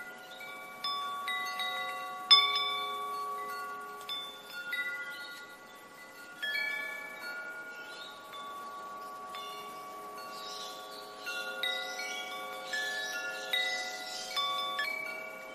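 Wind chimes ringing: metal chimes struck at irregular moments, their clear notes overlapping and ringing on, with one louder strike a couple of seconds in.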